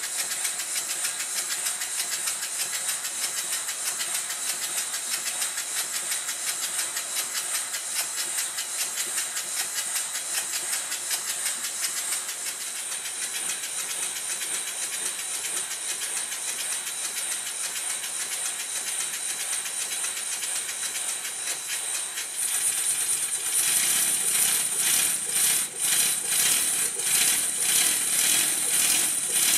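Stuart Score twin-cylinder slide-valve model steam engine running on compressed air: a fast even patter of exhaust beats over a constant hiss of escaping air. About three-quarters of the way through it picks up speed and gets louder. Its valve timing has just been set by ear, with the slide valve now the right way round.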